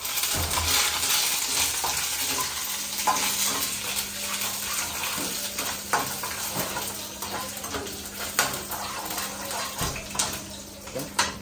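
Food frying in oil in a frying pan on a gas stove, a steady sizzle, while a metal spoon stirs and now and then clinks against the pan, five or so sharp clicks in all.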